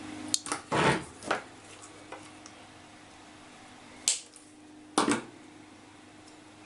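Small hand tools and parts being handled on a workbench: a quick cluster of clicks and knocks in the first second and a half, then two more single knocks about four and five seconds in, over a faint steady hum.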